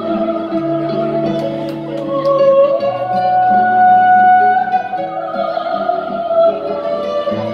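A woman singing a ballad live into a microphone over an instrumental backing track, holding long notes; about three seconds in her voice slides up to a higher note and holds it.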